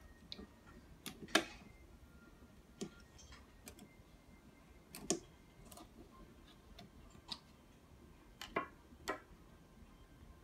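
Irregular light clicks and knocks of a screwdriver and fittings against the wooden panels of a monitor riser being assembled by hand. The sharpest click comes about a second and a half in, with two more half a second apart near the end.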